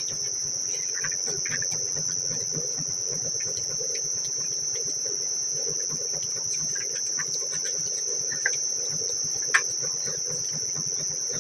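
Crickets trilling in a steady high-pitched chorus, with a few faint clicks and taps from steel plates and tumblers, one sharper near the end.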